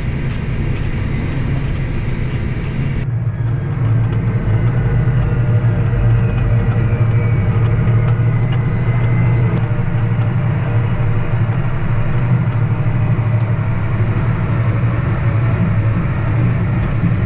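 Diesel engine of a farm tractor or combine running steadily, a deep drone heard from inside the cab. About three seconds in, the sound turns suddenly duller and a little louder.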